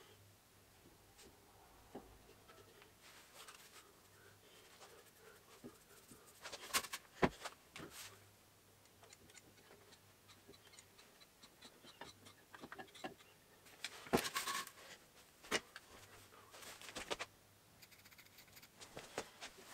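Metal parts being handled and a lever-action grease gun being worked on a wheel bearing housing: scattered light clicks and clinks, with louder clusters of clatter about 7 and 14 seconds in.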